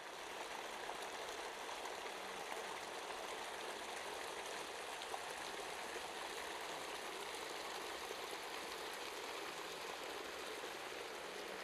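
Salty spring water (brine) running steadily along a narrow channel between salt-crusted banks, a continuous rush of flowing water.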